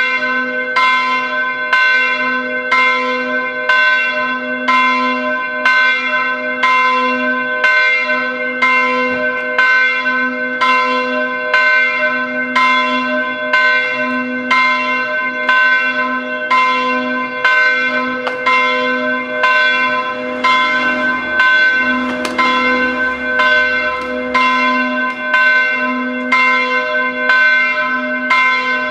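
Church bells of the Letten church ringing the 11 o'clock peal: an even run of strokes about once a second, each ringing on into the next.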